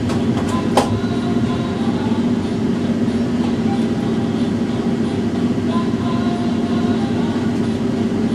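Steady electrical hum of a tram standing still, heard from inside the driver's cab, with a few sharp clicks in the first second.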